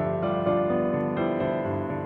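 Gentle background piano music, its notes changing every half second or so.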